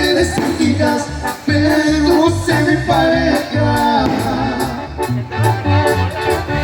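Latin American band music with a pulsing bass line under sustained melody lines.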